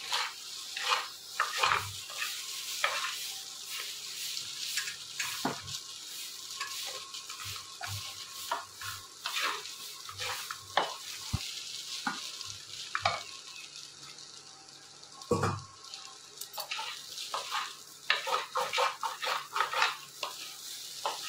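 Spatula scraping and knocking against a non-stick kadai as stir-fried noodles are tossed, over a steady sizzle of frying; the strokes come faster near the end.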